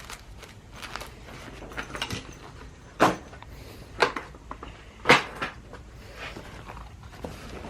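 Objects being handled and moved about: a series of knocks and clatters, the three loudest about a second apart in the middle, with lighter taps around them.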